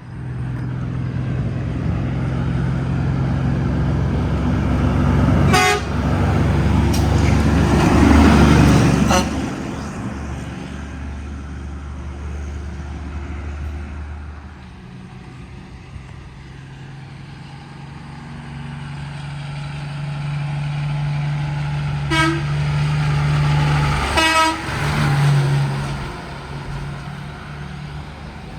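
Heavy trucks passing with their diesel engines running, sounding short horn toots in two groups, the first around a fifth of the way in and the second about three-quarters through.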